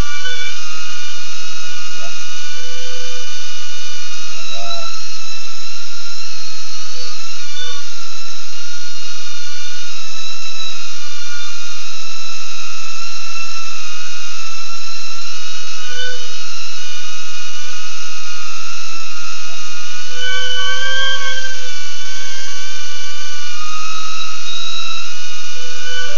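BetaFPV Aquila16 FPV drone's small motors and propellers whining, high-pitched and steady, the pitch shifting slightly as the throttle changes, a little higher about twenty seconds in.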